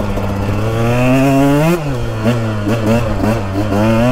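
2022 KTM 125XC two-stroke engine with an FMF Factory Fatty expansion chamber and Powercore 2.1 silencer, ridden under throttle. The revs climb steadily, drop off sharply just under two seconds in, and after a few short throttle blips climb again near the end.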